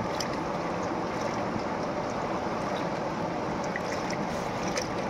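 River water flowing past the rocks: a steady rushing hiss, with a few faint ticks.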